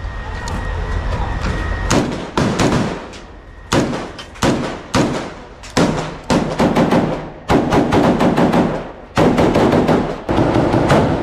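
Small-arms gunfire: many sharp shots, some single and some in short rapid bursts, each followed by a ringing tail, coming thicker in the second half.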